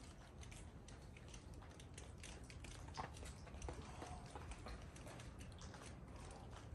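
Faint, irregular scuffs and taps of a climber's hands and shoes on the boulder's rock, over a steady low rumble. The clearest tap comes about three seconds in.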